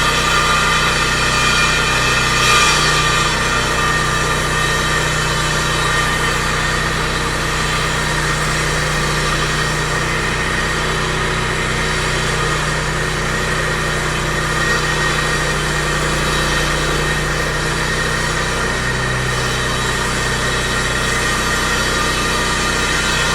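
An engine running steadily at idle, a constant machine hum at sidewalk repair work, with one brief louder noise about two and a half seconds in.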